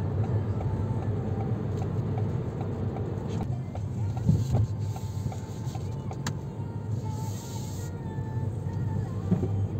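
Steady cabin noise of a Ford Tourneo Courier with a 1.0 EcoBoost turbo petrol three-cylinder, cruising: a low engine and tyre hum heard from inside the car. There is a light knock about four seconds in.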